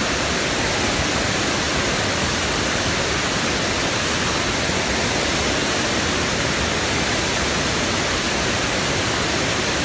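Waterfall rushing steadily: an even, unbroken noise of falling water with no change in level.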